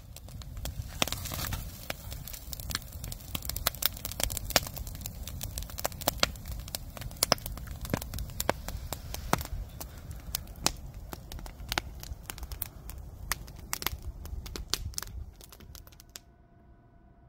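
Wood campfire burning, crackling and popping with frequent sharp snaps over a low rumble. The crackling fades out near the end, leaving a faint steady hum.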